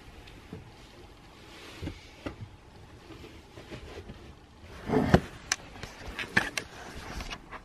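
Rustling of bedding, then a cluster of handling thumps and knocks, loudest about five seconds in, followed by several sharp clicks, as the camera is bumped by a cat and tipped over.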